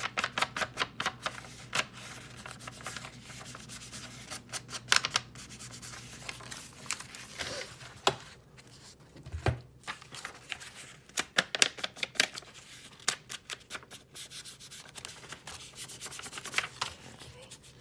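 Foam ink blending tool dabbed and scrubbed over book-page paper, applying ink to the page edges in bursts of quick, soft taps and rubs.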